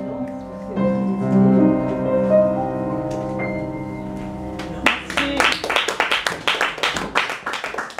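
Piano playing slow, held chords that ring out as the improvised accompaniment ends. About five seconds in, an audience starts clapping and applause fills the rest.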